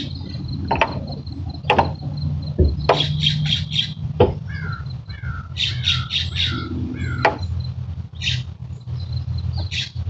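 Barn owl chick of about five to six weeks making short, rasping hiss-calls in quick runs of three to five, with a few sharp clicks in between, over a steady low hum.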